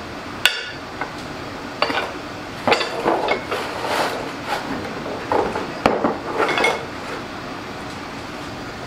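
Metal parts clinking and clanking as they are picked up and handled: a string of sharp knocks, some of them ringing, for about six seconds, dying away near the end.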